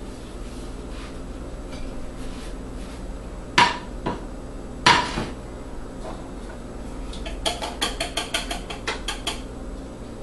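Two sharp metallic clangs of cookware, about a second and a half apart, then a quick run of about fifteen light metal clinks, several a second, like a utensil against a dish.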